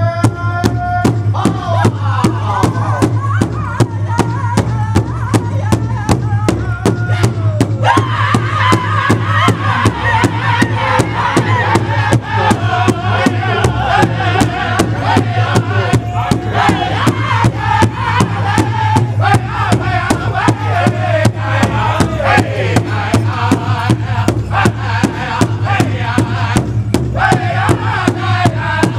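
Powwow drum group singing an intertribal song: several men strike one large hide drum together in a steady beat while singing in unison.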